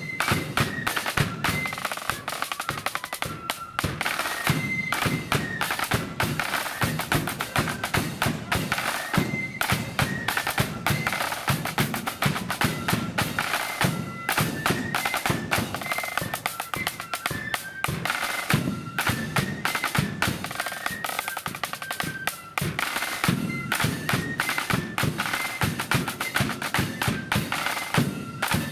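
Marching flute band playing: flutes carry a stepping melody over rapid, heavy snare drumming and bass drum beats, in the loud blood-and-thunder style.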